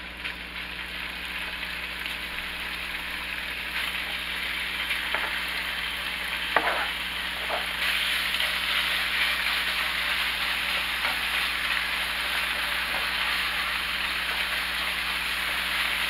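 Thinly sliced raw chicken sizzling in hot oil in a nonstick frying pan. The sizzle grows louder over the first few seconds as more chicken goes in. A few sharp clicks come from stirring it with a wooden spatula.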